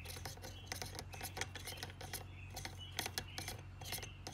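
Faint, irregular small clicks and light taps of hands handling a carbon fiber tube fitted over an air rifle's barrel, over a low steady hum.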